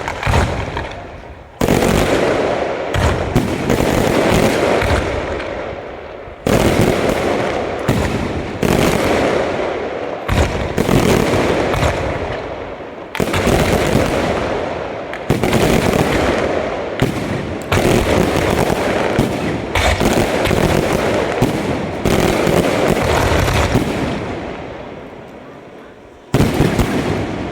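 Aerial fireworks bursting in a rapid series of loud bangs, about one every one to two seconds, each sudden and trailing off in a fading crackle before the next.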